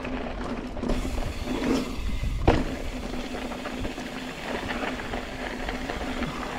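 Mountain bike riding over a dirt trail: steady tyre rumble and wind noise on the bike-mounted or body-mounted microphone, with small rattles from the bike and one sharp knock about two and a half seconds in.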